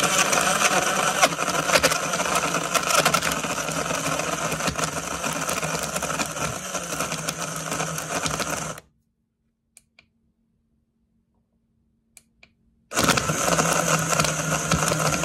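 BlendJet portable blender running, crushing ice cubes into an oat-milk protein shake. It runs for about nine seconds, stops, and starts again about four seconds later.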